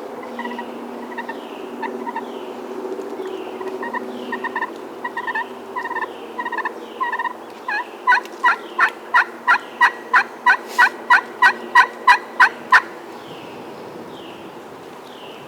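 Wild turkey yelping: a run of notes that grows louder, then a fast series of about fifteen loud, evenly spaced yelps, about three a second, that stops short.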